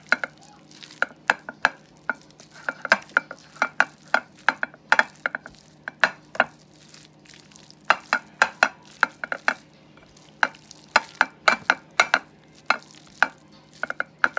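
Spatula stirring a mayonnaise-dressed chicken salad in a glass baking dish: an irregular run of short wet smacks and knocks against the glass, several a second.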